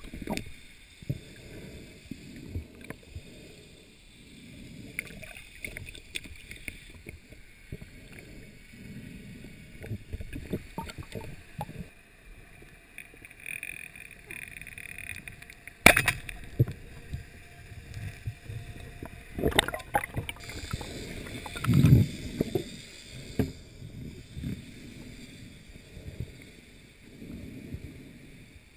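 Muffled water movement heard through an underwater camera housing as a freediver swims, with scattered knocks. A sharp crack comes about halfway through, and a louder low thump a few seconds later.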